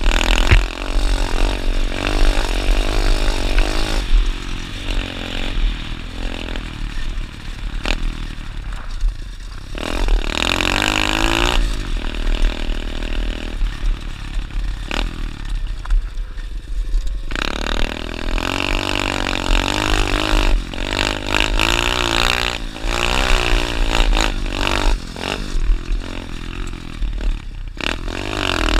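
Dirt bike engine being ridden hard, its pitch climbing and dropping again and again as the throttle is opened and closed through the gears, over a steady low rumble.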